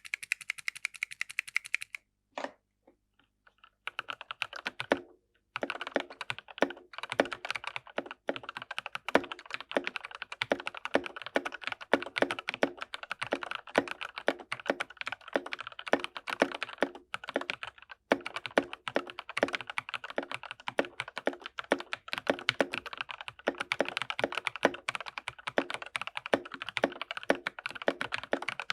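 Typing on a 60% mechanical keyboard with lubed TKC Tangerine linear switches, an FR4 plate, case foam and GMK Mecha-01 clone keycaps: a fast, dense run of keystrokes. It thins to a few single strokes about two seconds in, then steady typing resumes and carries on.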